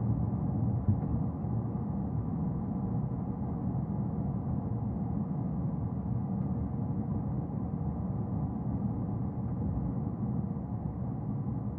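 Steady low rumble of a car driving at a constant pace: road and engine noise.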